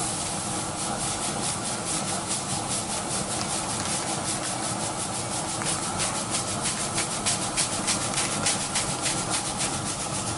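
Working copper aeolipile (Hero's engine) spinning under steam: a steady jetting hiss of steam from the ball's nozzles, pulsing rapidly and evenly several times a second.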